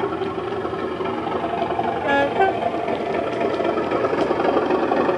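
Model Class 37 diesel locomotives' DCC sound decoders, playing the Bachmann sound file through small speakers: the diesel engine sound runs steadily, and a short two-tone horn blast sounds about two seconds in.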